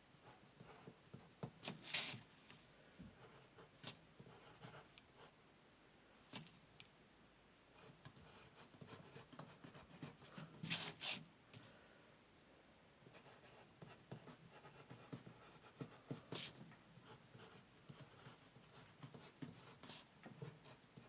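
Near silence with faint handling noises: scattered light clicks and rustles, with a few sharper clicks about 2 seconds in, near the middle and about 16 seconds in.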